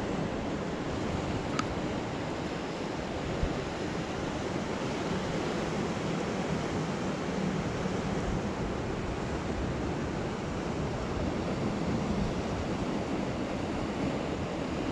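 Steady rush of ocean surf washing against a rocky shoreline, mixed with wind buffeting the microphone.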